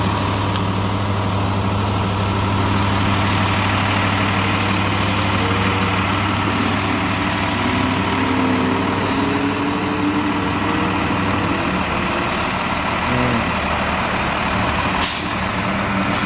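Hino 268 box truck's six-cylinder diesel engine idling steadily, its low hum dropping somewhat about eleven seconds in. A single sharp click sounds near the end.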